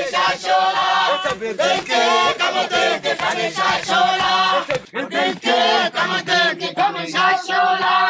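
A group of Hadza voices singing a chant together, with a steady beat of short strikes about two to three a second under the singing.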